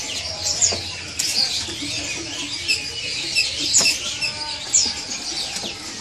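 Many caged songbirds chirping and calling at once: short high chirps and quick whistled sweeps that overlap one another.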